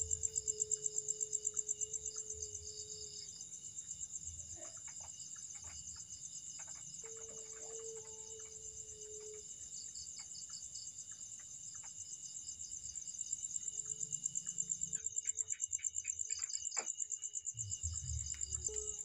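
Night chorus of crickets and other insects trilling steadily with a fast pulse. Through it, a faint low drawn-out tone comes and goes several times, each lasting a few seconds; this is the strange moaning heard from the corner of the goat pen. Scattered faint clicks.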